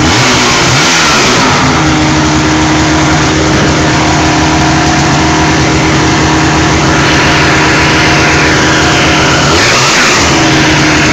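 Two-stroke engine of a 1980 Ski-Doo Blizzard snowmobile running after being brought back to life, its revs dipping and picking back up briefly about a second in and again near the end.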